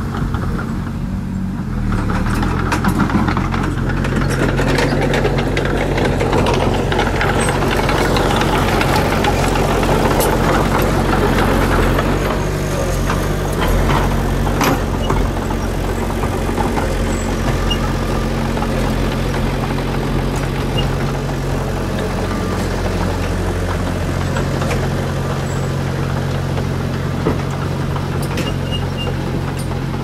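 Small crawler bulldozer's engine running steadily under load, with the clatter of its steel tracks and the scrape of its blade pushing dirt and brush. The clatter is busiest in the first half.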